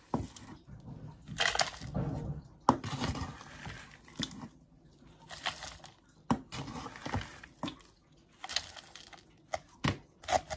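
Potting compost being scooped and tipped into a terracotta pot: irregular rustling pours and scrapes, with a few sharp knocks of the scoop.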